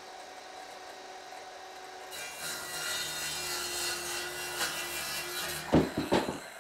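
Ryobi circular saw running, then cutting across a timber cleat. The motor spins with a steady whine for about two seconds before the blade goes into the wood with a louder, rasping cut. The cut ends near the end with a few knocks.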